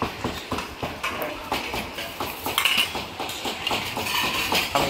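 Kitchen utensils knocking and clinking in quick, irregular succession, several a second.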